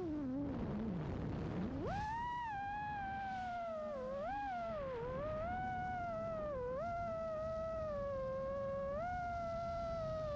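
FPV quadcopter's motors whining, one tone that dips low and climbs back in the first two seconds, then wavers up and down as the throttle changes, cutting off abruptly near the end.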